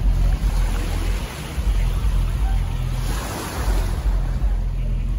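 Sea water washing against the shore, with wind rumbling on the microphone. The wash swells louder for a moment about three seconds in.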